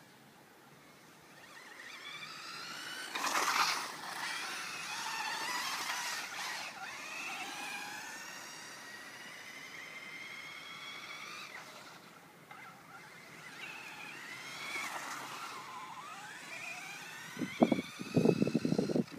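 Vaterra Glamis RC buggy's brushless electric motor whining, its pitch climbing and falling again and again as the car accelerates and slows, with a louder rasping surge a few seconds in. Near the end, a burst of loud, rough knocking noise.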